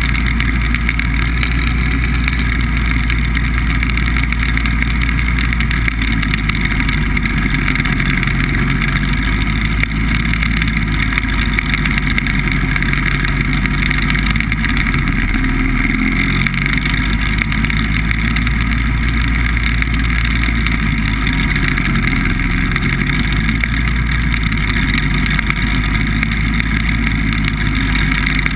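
BBV2+2 hovercraft's engine and fans running steadily under way, heard from on board the craft.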